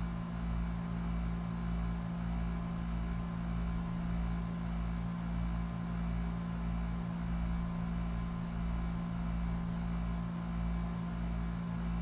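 HVAC unit running with a steady low hum and a rhythmic sawing, grinding pulse beneath it.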